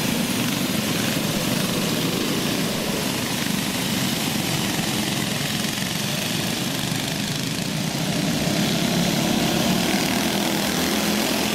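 Several go-kart engines running at race speed around a dirt oval, a steady, buzzing drone from the pack of karts.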